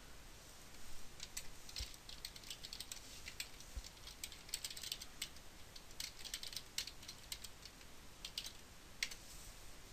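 Typing on a computer keyboard: irregular runs of key clicks, with one sharper click near the end.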